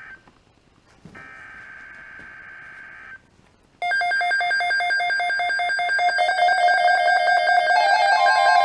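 Weather-radio alert starting. First comes a roughly two-second burst of the SAME digital header, a raspy data screech. After a short gap, loud, rapidly pulsing alarm beeps begin, and a steady tone joins underneath near the end. This marks the opening of a tornado watch alert.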